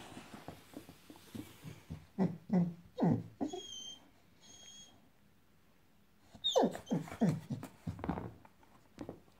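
Boxador puppy whimpering at a rubber pig toy in short cries that fall in pitch, in two bouts with a quiet gap between. Two brief high squeaks come from the squeaky rubber toy near the middle.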